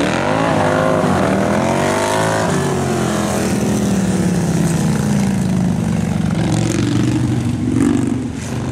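Big-twin bagger motorcycles racing past, several engines revving hard at once as they accelerate through the corners. The pitch rises and falls repeatedly over the first few seconds with throttle and gear changes, then holds steadier, with another rise near the end.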